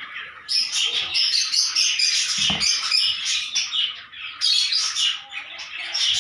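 A flock of young chicks peeping, a dense run of quick high-pitched chirps, with a brief low thud about two and a half seconds in.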